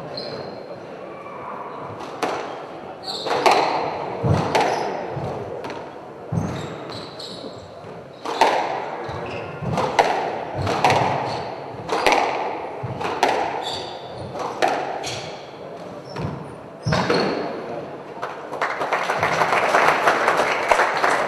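A squash rally: the ball cracks off rackets and walls about once every second or so, with short high squeaks from shoes on the court floor. Applause breaks out near the end as the point is won.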